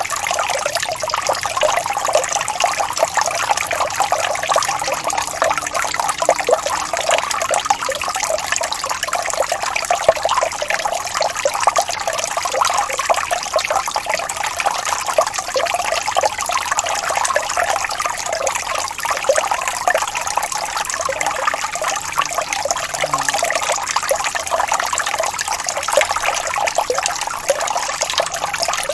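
Water falling steadily from a fountain into a pool, running on without a break.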